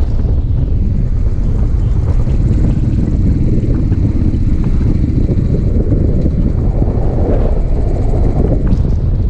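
Motorcycle on the move with heavy wind buffeting the microphone, a steady low rumble of engine and rushing air.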